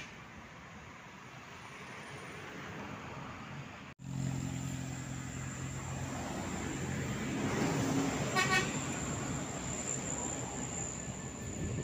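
Road traffic on a mountain bend, then a Mercedes-Benz coach's diesel engine running with a steady low hum as it passes close by. About eight seconds in, a horn gives a short toot.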